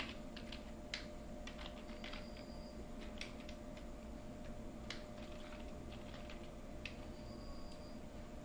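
Computer keyboard keystrokes clicking in short, irregular runs as text is typed, faint over a steady low hum.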